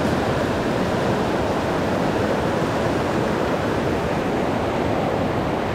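Steady rushing of a fast-flowing river current, an even roar of water with no breaks.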